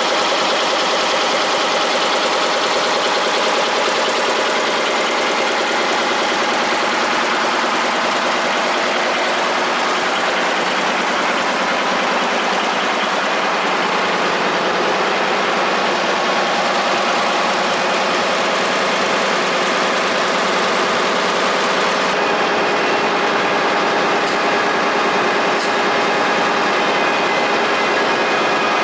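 Twelve-tower 2003 Heidelberg Mercury web offset newspaper press running at speed: a loud, steady mechanical din with several constant hums and whines layered over it.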